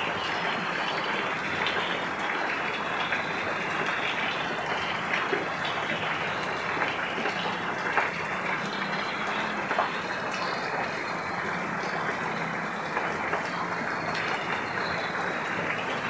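Rain falling steadily, with a few sharper drops hitting close by now and then.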